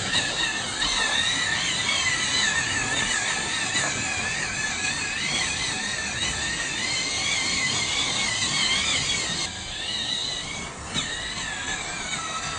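Small electric motor and gears of an MN 99s 1:12 RC crawler whining, the pitch wavering as the throttle and load change. The whine dips briefly about ten seconds in and then picks up again.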